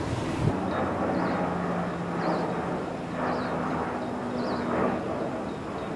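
Boat engine running steadily, a low hum that holds its pitch, with a few faint high chirps over it.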